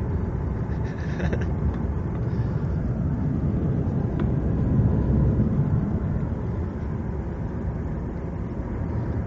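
Road and engine noise heard inside a moving car's cabin: a steady low rumble that grows a little louder about halfway through.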